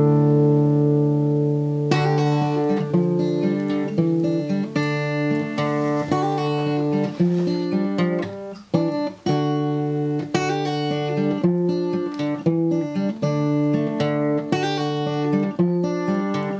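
Acoustic guitar music: a held chord rings for about two seconds, then quick picked notes and strums follow.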